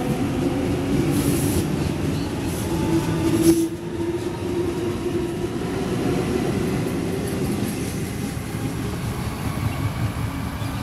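Double-deck Sydney Trains electric train running along the station platform: a continuous rumble of wheels on rail with a steady whine over it. The sound drops suddenly about three and a half seconds in, then carries on quieter.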